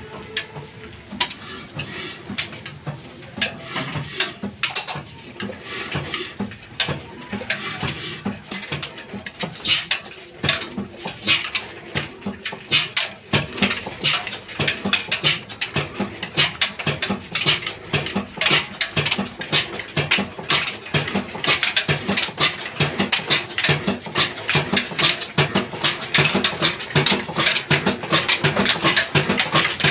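Old black single-cylinder stationary diesel engine of the Ruston & Hornsby type, with a heavy flywheel, running with a knocking firing beat. The beats are uneven at first, then come faster, more regularly and louder as the engine picks up speed after starting.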